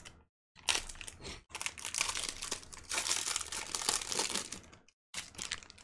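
Foil wrapper of a 2020 Topps Baseball Series One card pack crinkling and tearing as it is ripped open by hand, in about four stretches with brief pauses between them.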